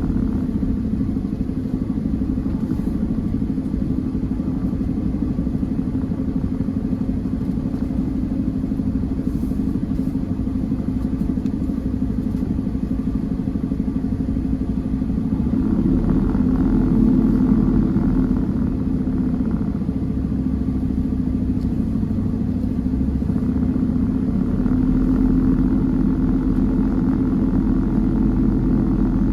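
Peterbilt 389 semi-truck's diesel engine running steadily as the truck moves slowly, swelling briefly about halfway through.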